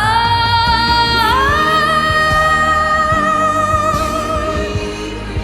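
A solo singing voice holds a long note that steps up in pitch at the start and again about a second in, then sustains with vibrato until it fades near the end, over a backing track.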